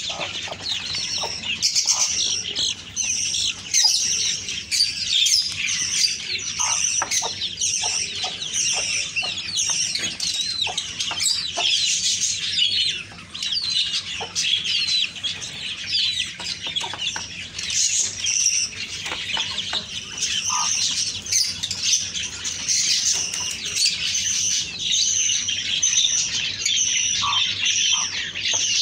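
Aseel chicks peeping in a dense, continuous chorus of high chirps, with a few short lower calls mixed in.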